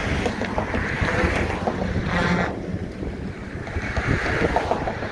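Wind buffeting the microphone, a low rumbling rush with a hiss that swells and fades twice.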